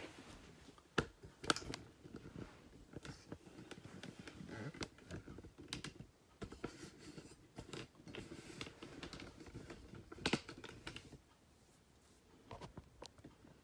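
Irregular light clicks and small knocks of hard plastic being handled, with sharper clicks about a second in, again half a second later, and about ten seconds in, then quieter.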